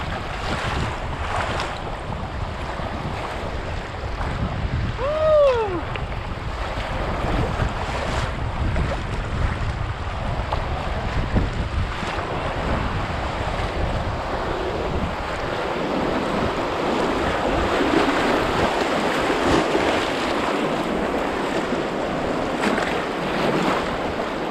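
River water rushing and splashing around a kayak in class 2 rapids, with wind buffeting the microphone. About five seconds in, a brief swooping call rises and falls once over the water noise.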